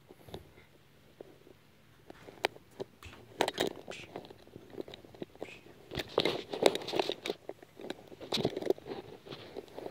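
Irregular rustling, crackling and clicking close to the microphone, sparse at first and busier from about two seconds in: the phone rubbing and bumping as it is handled close against a cat's fur and the carpet.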